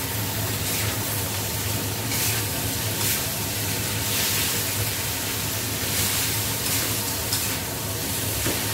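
Vegetables and shrimp sizzling in a stainless steel wok over a gas flame, with a metal spatula scraping and turning them every second or so. A steady low hum runs underneath.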